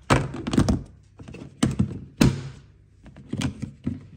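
A clear plastic storage box being handled, with about half a dozen sharp knocks and clacks of the plastic.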